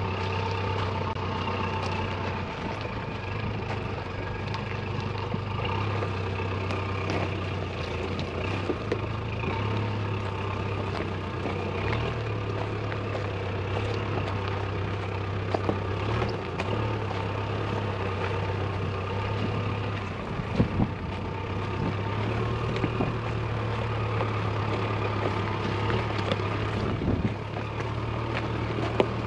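Mitsubishi Shogun 4x4 crawling slowly over a rocky trail: its engine runs with a steady hum, with scattered clicks and crunches of stones under the tyres.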